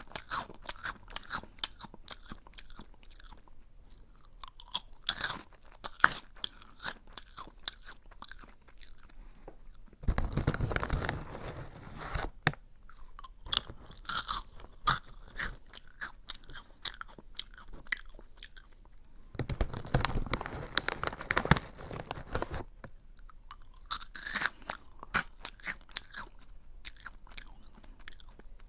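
Close-up chewing of a crunchy snack: many crisp, irregular crunches, with two denser stretches of a few seconds each, about ten and twenty seconds in.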